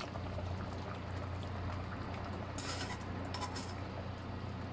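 Pot of soup simmering with a steady low bubbling, under a low steady hum. Around the middle come a few short wet splashes and rustles as handfuls of soaked royal fern drop into the broth.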